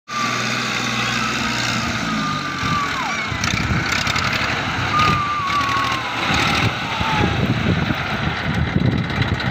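Massey Ferguson 1035 DI tractor's three-cylinder diesel engine running steadily as the tractor drives across a field, growing a little louder as it comes closer.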